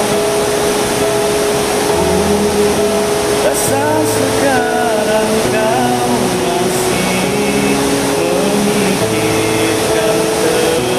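Karaoke backing track of a slow pop song: held keyboard chords over bass notes that change about every two seconds. A man's singing voice slides through a short phrase about four to five seconds in.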